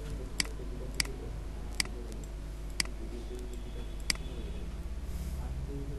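Computer mouse buttons clicking, five single clicks at uneven intervals, over a steady low hum.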